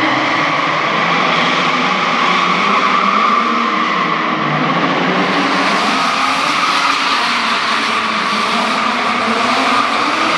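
BMW E36 drift cars sliding sideways under power, engines held at high revs with tyres squealing, a loud and unbroken sound.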